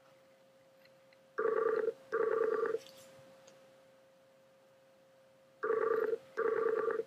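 Skype outgoing-call ringing tone: a double ring of two short tones in quick succession, then the same double ring again about four seconds later, while the call waits to be answered.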